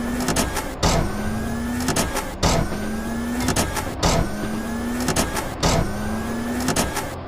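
A motor-like sound effect, a hum rising slightly in pitch, repeated as a loop about every one and a half seconds with a sharp click at each restart.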